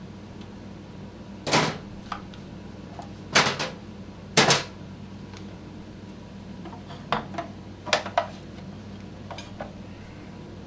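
Workshop handling noises: a series of sharp knocks and clatters from tools and parts being picked up and set down, the loudest a double knock about four and a half seconds in, over a steady low hum.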